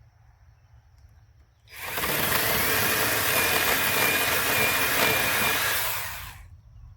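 Angle grinder started a little under two seconds in and run steadily with a high whine while grinding out a saddle notch in a log, then switched off and spinning down near the end.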